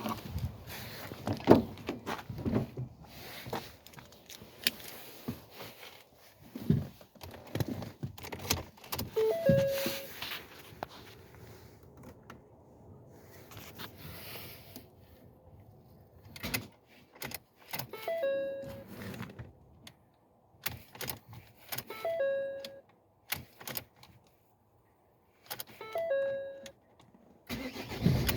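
Keys jangling and clicking, with a short electronic warning chime from the car sounding four times, several seconds apart.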